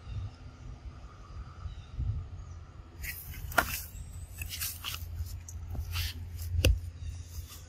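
Rustling and crunching through dry leaf litter and undergrowth from about three seconds in, with two sharp snaps, over a low steady rumble.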